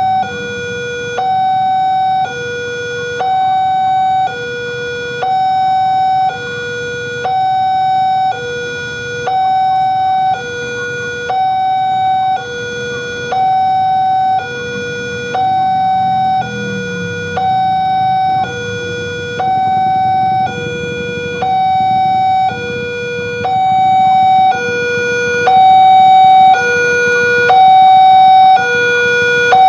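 Railway level-crossing warning alarm sounding a two-tone electronic chime, high and low tones alternating, each held about a second. Waiting traffic engines run underneath, and the alarm grows louder over the last few seconds.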